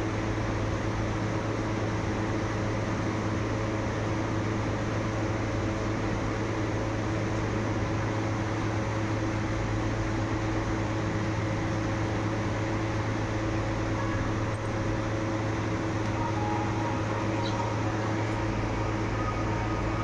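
Steady mechanical hum with a constant low drone, like a room fan or air cooler running. A few faint high chirps near the end.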